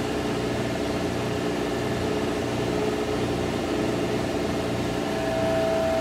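HTP Munchkin boiler's combustion (induction) blower running steadily during an ignition attempt that fails to light, the boiler showing an F09 flame-sense fault. A steady hum with several held tones; near the end one higher tone grows stronger.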